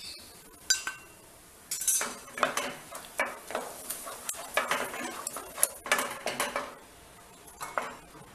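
A metal spoon stirring mango pulp in a pan, with irregular clinks and scrapes against the pan.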